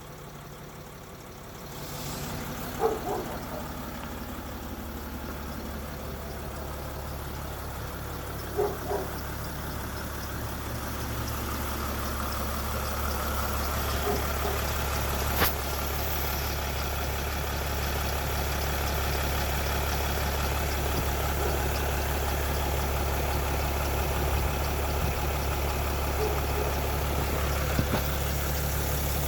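Vehicle engine idling steadily with a steady low hum, getting a little louder about two seconds in, with a few brief clicks or knocks.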